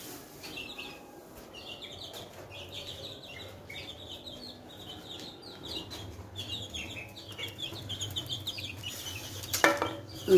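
Baby chicks peeping constantly, many short high falling chirps overlapping. Near the end there is a louder knock and rustle.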